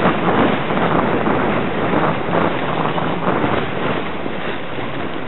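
Steady rushing noise of wind on the microphone and a sledge sliding fast over packed snow. It eases a little near the end.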